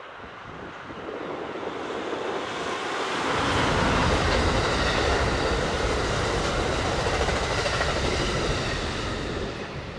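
A train passing close by: wheels on the rails and a low rumble build up over the first few seconds, hold through the middle and ease off near the end.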